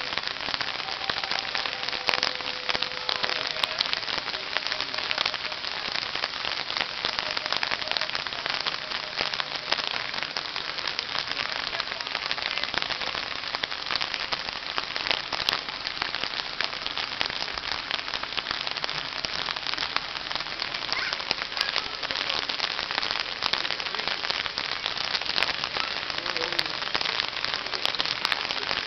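Steady rain falling, with many sharp little clicks of close drops striking nearby surfaces.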